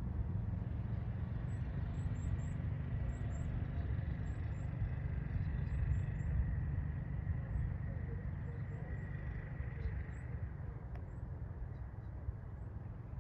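Outdoor ambience: a steady low rumble, with faint high-pitched bird chirps scattered through the first ten seconds or so.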